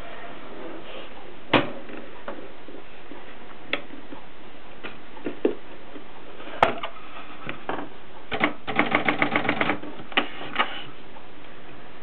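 Mercedes K45 typewriter being typed on: single key strikes a second or two apart, then a quick run of about ten keystrokes near the middle, followed by two more strikes.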